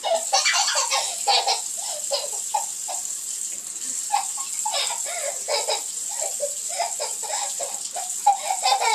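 Toddler giggling in many short bursts throughout, over the steady hiss of a kitchen tap running into the sink.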